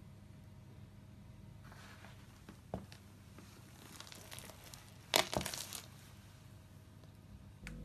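A small brittle object cracking and crunching under a sneaker sole as it is stepped on: one sharp crack about five seconds in, followed by a quick run of crackles for about half a second. A light tap comes a little under three seconds in, the object being set down on the wooden floor.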